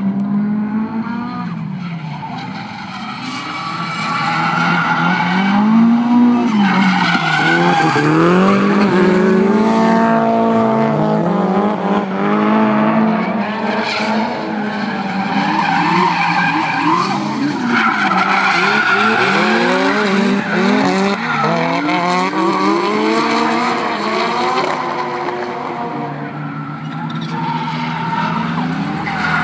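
Drift cars' engines revving up and falling back again and again as they slide through the corners, with tyres squealing and skidding on the tarmac. Loud and continuous.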